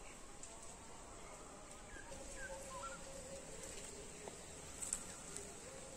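Field ambience of insects droning steadily at a high pitch, with a few short bird chirps between about one and a half and three seconds in, and a single sharp click near the end.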